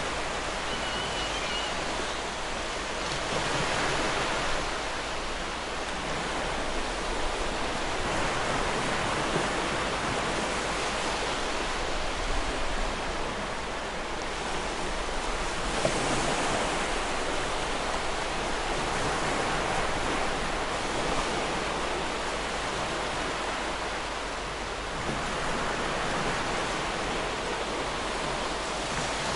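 Ocean surf: a steady wash of breaking waves that swells and eases every several seconds. A gull gives one brief, faint call about a second in.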